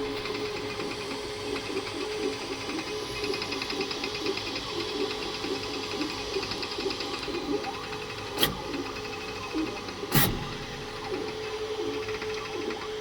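Creality K2 Plus 3D printer running a print: the stepper motors whir and buzz in quick, shifting patterns as the print head moves, with two sharp clicks near the end. The owner suspects this noise is new and unusual, perhaps due to a slow print-speed setting.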